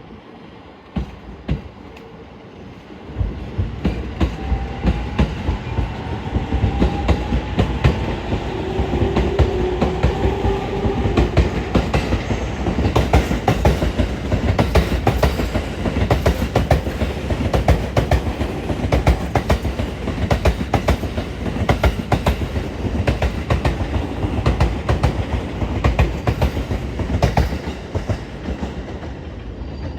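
E231 series electric commuter train pulling out of the station: about three seconds in, the rumble grows loud, and a rising motor whine comes as it accelerates. The wheels clatter rapidly over rail joints and points as the cars pass.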